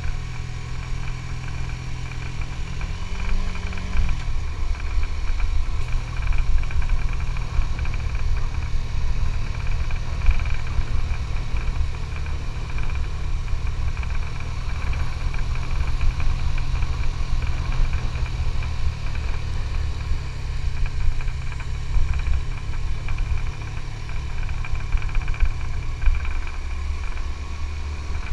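Suzuki GSX-S150's single-cylinder engine running under way, with a low rumble underneath. The engine note rises briefly about three seconds in, drops back about a second later, and shifts again near the end.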